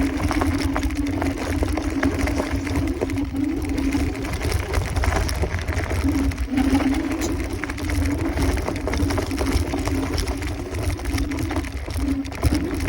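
Kaabo Wolf Warrior 11 Pro electric scooter's dual hub motors whining at a steady, slightly wavering pitch under way, over a low rumble of wind on the microphone.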